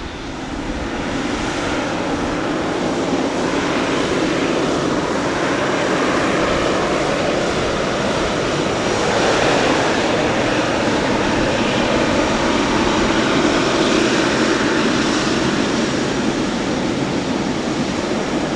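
Jet airliner engines at an airport, a steady rushing noise that swells gently in the middle and eases toward the end.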